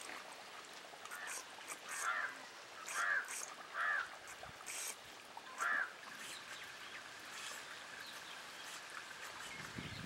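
Birds calling: four short calls from a larger bird in the first six seconds, with thin high chirps from small birds in between.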